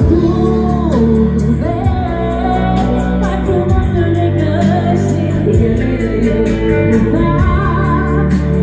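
A woman singing a song over backing music with a steady bass and beat.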